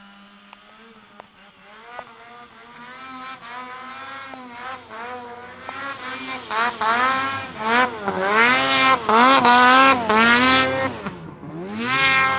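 Two-stroke mountain snowmobile engine revving hard up and down over and over as a sled climbs a steep hill. It grows steadily louder, is loudest about eight to ten seconds in, dips briefly, then surges once more near the end.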